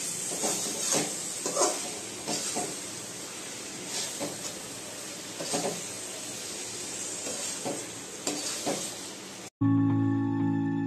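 Dry chilli chicken sizzling in a steel kadai while a metal spatula stirs it, scraping the pan in irregular strokes. Near the end it cuts off suddenly and soft background music begins.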